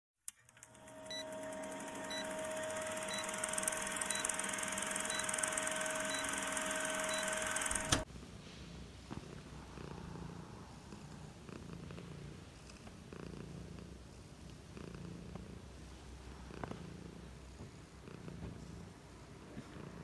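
For the first eight seconds, a film-countdown intro sound effect: hiss with a steady tone and a short beep about once a second, cutting off suddenly. Then a domestic cat purring, a low purr pulsing in a regular rhythm.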